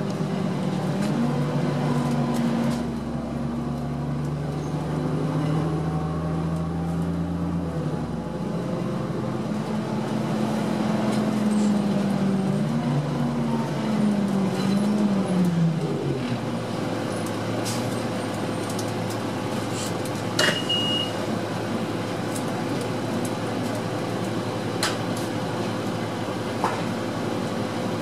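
Inside a 2006 Orion VII diesel city bus, its Cummins ISL diesel engine and Allison automatic transmission running under way. The engine note shifts and climbs through the first half, then drops away a little past halfway into a low steady hum as the bus eases off. About two-thirds through comes a sharp click with a short high beep.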